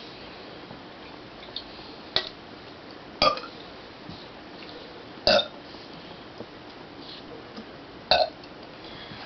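A person's short, pitched burps, four in the space of about six seconds, with a second or two between them.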